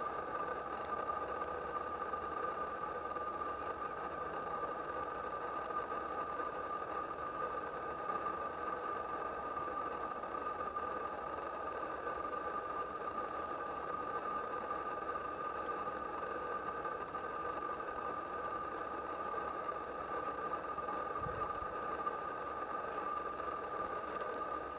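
A steady, unchanging hum with a constant mid-pitched tone and no bird calls.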